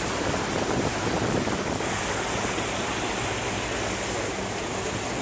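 Steady wind on the microphone mixed with the rush of sea water, heard from a boat's open deck.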